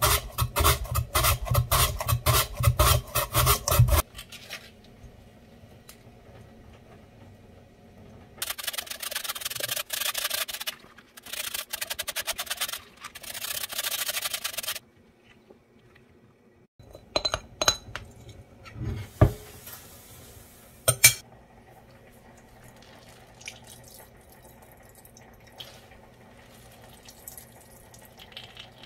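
Raw potato being shredded on a wooden julienne mandoline slicer into a glass bowl: quick rhythmic scraping strokes, about three a second, for the first four seconds. Later come three spells of steady hissing and a few sharp knocks, and near the end water trickles into the bowl as the shreds are squeezed by hand.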